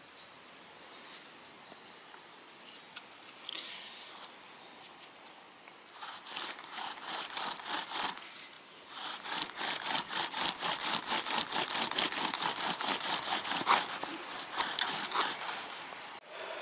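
Bow drill at work: a poplar spindle grinding in a poplar fireboard, driven by a bow with a twisted elm-bark string, in quick rhythmic back-and-forth strokes. The strokes start about six seconds in, pause briefly, then resume louder until just before the end. This is the burning-in of the hearth before the notch is cut.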